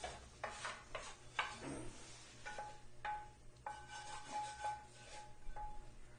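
Spatula scraping food out of one frying pan into another: a run of short scrapes and knocks against the pans, with a thin ringing tone coming and going in the second half.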